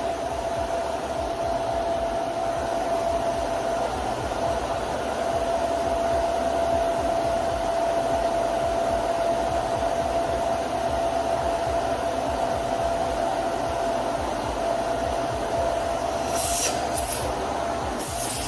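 Dyson Ball Multifloor 2 upright vacuum cleaner running steadily, a constant motor whine over a rushing air noise. A few brief high-pitched rattles come near the end.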